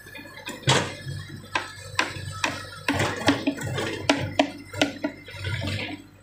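Komatsu PC60 excavator's steel bucket scraping through soil and rubble, with a dozen or so sharp knocks and clatters of steel on broken concrete chunks over a steady low diesel engine hum.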